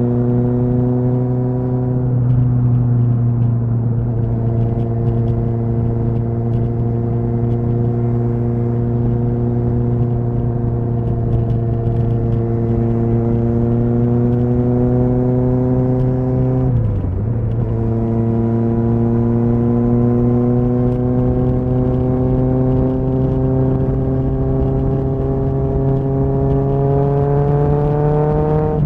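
Kawasaki ZXR motorcycle's inline-four engine running under way at steady road speed, its pitch slowly rising. A gear change dips the revs briefly about two seconds in and again, more sharply, about two-thirds of the way through, and the revs climb again near the end.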